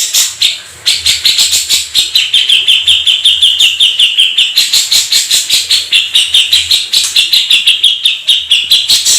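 Songbird singing a long, fast run of repeated sharp notes, about five or six a second, with the pitch dipping and rising slightly as it goes.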